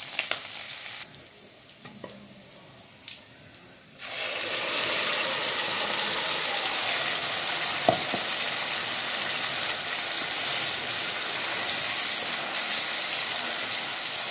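Bay leaf, dry red chilli, green chilli and ginger sizzling in hot desi ghee in a steel kadai. About four seconds in, the sizzle turns much louder and steady as tomato puree fries in the ghee, stirred with a wooden spatula, with one sharp knock near eight seconds.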